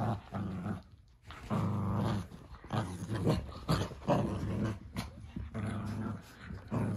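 Cavalier King Charles spaniel puppies play-growling as they wrestle, in a string of short low growls with a brief pause about a second in.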